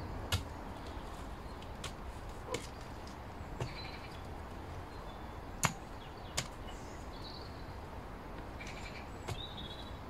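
Mattock blade chopping into the soil of a raised bed: about seven sharp, irregularly spaced strikes, the loudest about halfway through.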